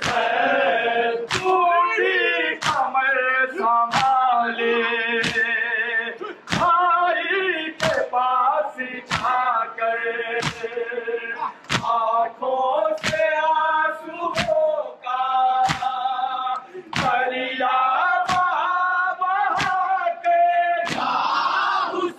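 Male voices chanting a mourning lament (noha) in a steady melody while a crowd of mourners beats their chests in time, sharp hand-on-chest slaps about three every two seconds.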